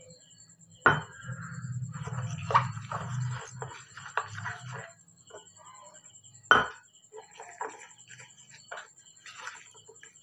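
A metal spoon scraping and stirring flour and water into a batter in a stainless steel bowl, with two sharp metal clinks, one about a second in and one about six and a half seconds in.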